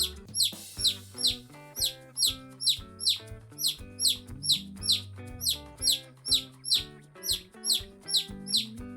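Baby chick sound effect: a quick run of short, high, falling cheeps, about two or three a second, over background music.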